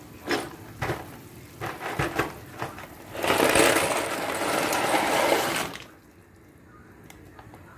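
Dry penne pasta rattling in its cardboard box, then poured out in a rush of about two and a half seconds into a pot of boiling water.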